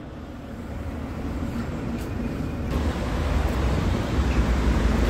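Low rushing, rumbling noise with no clear pitch that swells about halfway through and cuts off suddenly at the end.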